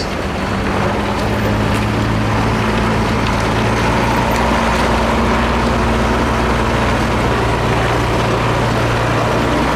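Diesel engine of a 6x6 Mercedes-Benz trial truck working under load as it crawls up a steep rocky slope, its note rising over the first second and then holding steady.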